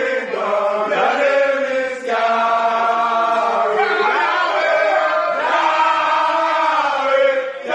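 A group of male footballers singing a praise song together in unison. The singing comes in long held phrases with short breaks between them.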